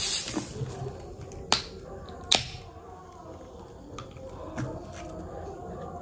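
A person drinking soda from a can in big gulps: a slurp at the start, then sharp swallowing clicks, the loudest about one and a half and two and a half seconds in, with a few softer ones later.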